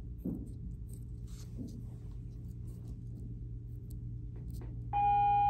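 Small ribbon tool scraping lines into a painted clay bowl: light, sparse scratching. Near the end a loud steady electronic tone sets in.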